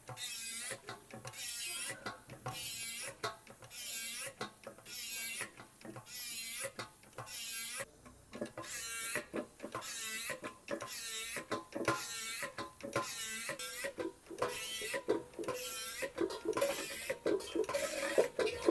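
Hand-operated lever bucket pump being worked at about one stroke a second, each stroke squeaking, as it pumps automatic transmission fluid through a hose into the transmission.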